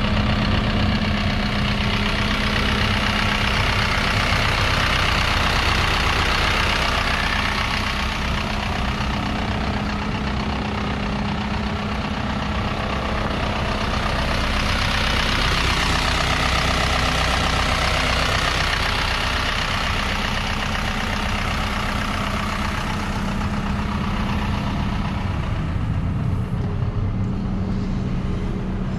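Isuzu NQR truck's diesel engine idling steadily, with an even hum under a broad steady hiss.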